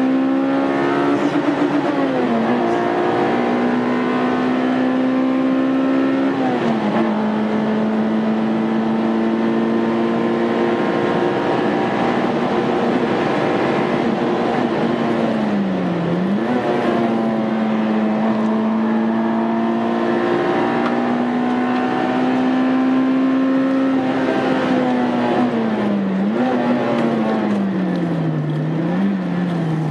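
Honda Integra Type R's four-cylinder engine pulling hard at high revs. Its note holds high for long stretches, dips sharply about five times as the car shifts or lifts, and climbs back each time.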